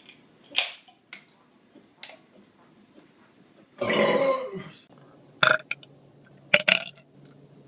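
A man's loud belch lasting about a second, about four seconds in, with a few short sharp sounds around it.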